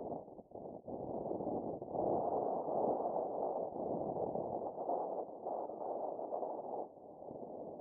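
Wind rushing over the microphone of a paraglider in flight, surging and easing, with brief dips just under a second in and a drop about seven seconds in.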